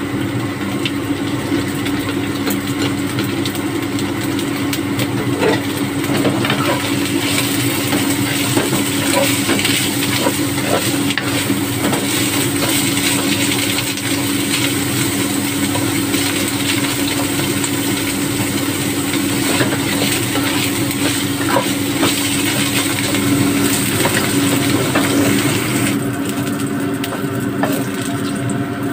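Diced Chinese sausage and garlic sizzling in oil in a wok while a spatula scrapes and stirs, with many short scrapes and clicks over the hiss; the sizzle dies away near the end. A steady low hum runs underneath.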